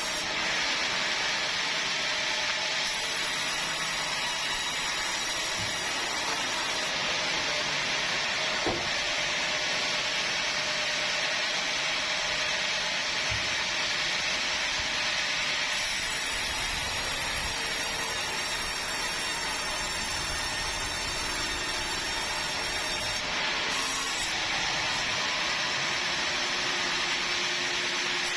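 Sawmill blade cutting through bengkirai hardwood: steady, high sawing noise.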